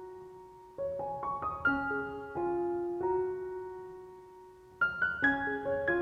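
Background piano music: gentle notes and chords that ring and fade, with a new phrase coming in about a second in and again near the end.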